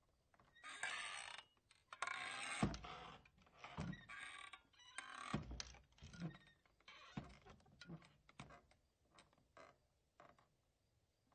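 Saloon-style swinging doors creaking on their hinges as they swing back and forth, with dull knocks among the creaks. The swings get shorter and fainter toward the end as the doors settle.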